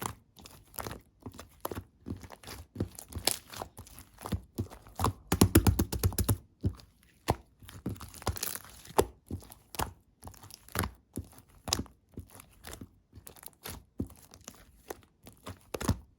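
Slime being squished and pressed by hand, making a run of sticky crackles and small pops. About five seconds in there is a dense burst of rapid pops.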